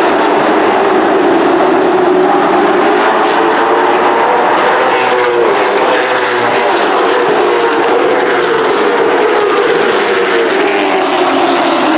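Late model stock cars' V8 engines running on the track as a pack, a loud steady drone whose pitch wavers, rising slightly about halfway through and falling off near the end.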